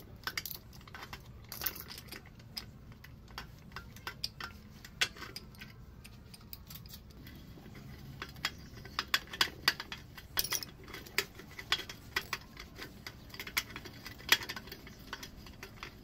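A steel rod jabbing and scraping inside the rusty cooling-water hopper of an old single-cylinder D8 diesel engine, making irregular metallic clinks and clicks. They get busier in the second half, with the sharpest clink near the end.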